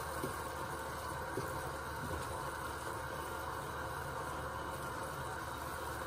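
Rice with a little water left in it simmering in an aluminium pan, a steady soft hiss, with a few faint taps of a wooden spoon stirring in the first couple of seconds.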